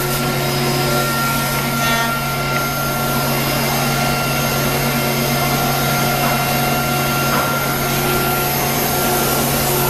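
CNC router running, a steady machine hum with a constant higher whine over a hiss, like a motor or vacuum pump.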